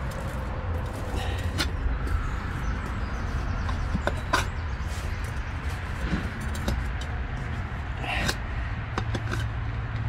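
A screwdriver levering a small tyre's bead over a steel wheel rim, with a few sharp clicks and scrapes of metal on the rim. A steady low rumble runs underneath.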